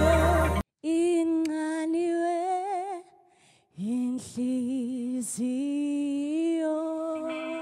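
Gospel worship band music cuts off suddenly. A woman then sings alone without accompaniment, drawn-out notes with vibrato, with a short pause about three seconds in.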